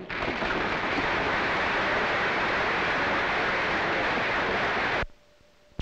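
Audience applauding, dense and steady, cut off suddenly about five seconds in.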